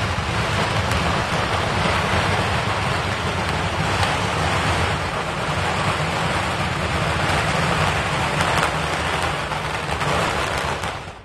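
A long string of Chinese firecrackers going off: a continuous, dense crackle of rapid pops that merge into one steady din and die down near the end.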